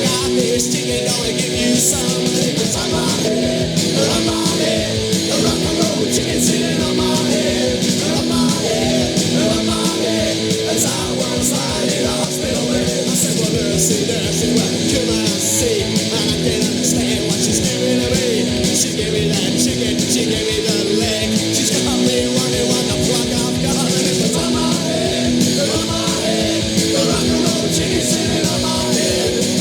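Rock band playing at full tilt: electric guitars over steady, driving drums in a punk-rock style.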